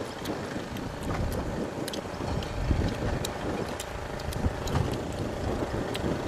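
Wind buffeting the microphone in a low, uneven rumble, with a faint steady hum behind it and scattered small clicks.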